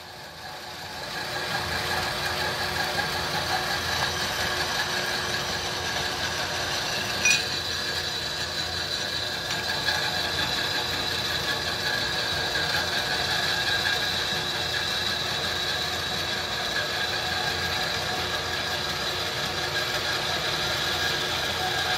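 Dayton horizontal metal-cutting band saw running, its blade cutting through aluminum T-slot extrusion with a steady whine. The sound swells over the first second or two and holds steady, with one sharp click about seven seconds in.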